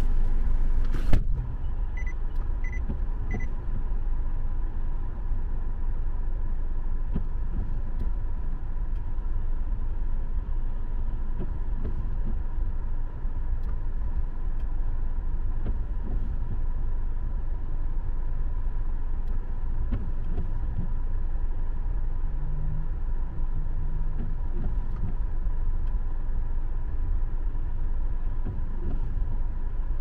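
A car door shuts with a thump about a second in, followed by three short beeps. After that the parked car's engine idles steadily, a low rumble heard from inside the cabin.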